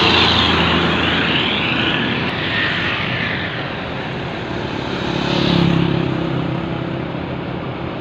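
A heavy tanker truck drives past close by, its engine and tyre noise loudest at the start and fading over the next few seconds. A second vehicle passes about five seconds in, its engine hum swelling and then fading.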